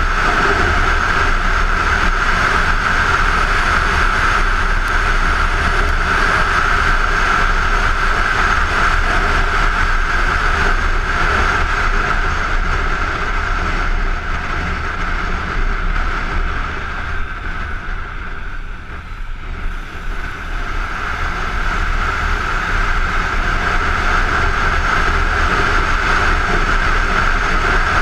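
Kawasaki Ninja 250 parallel-twin motorcycle riding at road speed, its engine running under a steady rush of wind on a helmet-mounted camera. The noise eases off for a few seconds past the middle, then rises again.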